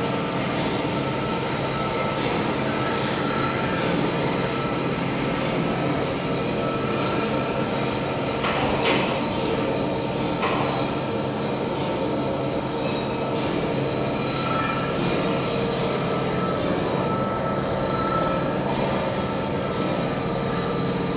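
Heavy horizontal lathe running, turning a large steel drum while the tool cuts its rim: a steady machine hum with several held whining tones over a grinding haze. Two short sharp clinks come about eight and ten seconds in.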